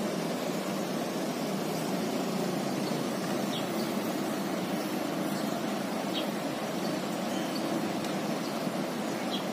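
Parked coach bus idling with a steady, even engine hum. A few faint short high chirps come over it.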